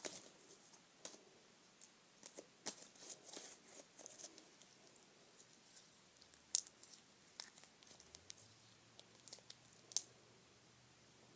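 Slime being played with by hand: faint, scattered sticky clicks and small pops, with two sharper pops, one past the middle and one near the end.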